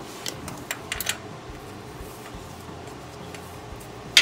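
Short metal clicks and taps of a cap-style oil filter wrench being worked onto the oil filter, a few in the first second and one louder, sharp click near the end.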